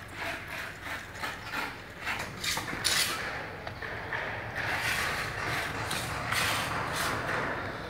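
A thin metal rod stirring gritty sand-cement mortar and water in a glass tumbler: rapid clicking and scraping of grit and metal against the glass. A louder, rougher scraping follows in the second half.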